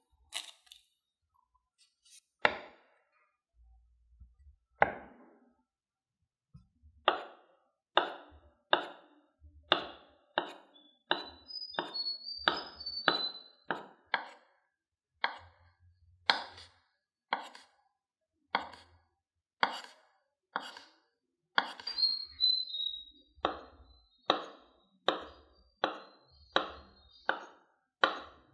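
Kitchen knife cutting through soft potato dough and knocking on an end-grain wooden cutting board: two single knocks, then a steady run of cuts about two a second from about seven seconds in.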